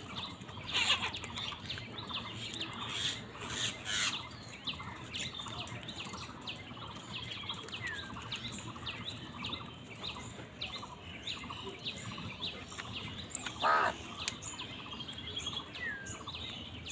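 Flock of house crows calling over food: a steady chatter of short chirping calls, with a few louder calls in the first few seconds and one louder caw late on.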